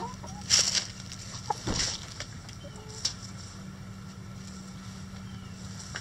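Backyard chickens foraging on dirt and straw: a few short clucks and brief rustling bursts, the loudest about half a second in and again just before two seconds, with a single sharp click about three seconds in. A steady low hum runs underneath.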